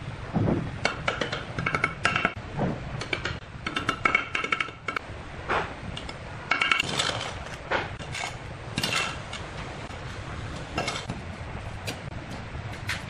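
A steel bricklaying trowel clinking and scraping against clay bricks and wet mortar as bricks are set and jointed: irregular sharp clinks, some ringing briefly, with scrapes between.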